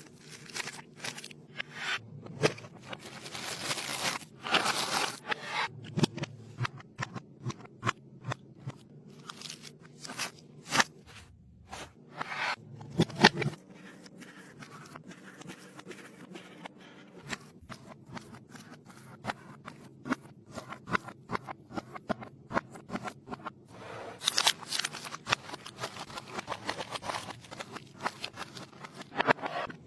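Restocking sounds from packaged goods being handled and put away: an irregular run of clicks, taps, scrapes and rustles from plastic and cardboard packaging, with the busiest stretches near the start and again near the end.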